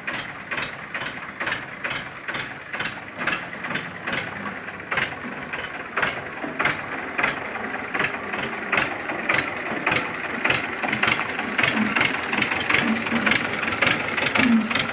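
1996 Escort 335 tractor's diesel engine idling with a regular knocking beat, which the owner holds sounds as good as new.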